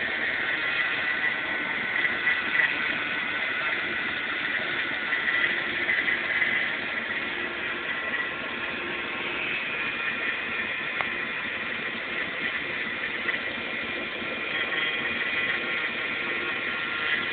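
A 1993 Dodge Dakota's 5.2-litre Magnum V8 (318) idling steadily, heard up close under the open hood.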